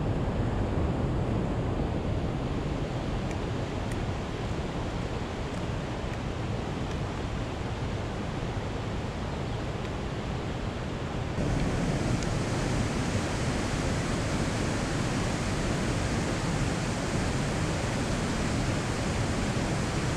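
Steady rushing outdoor noise, with no speech, that steps up a little in level at a cut about eleven seconds in.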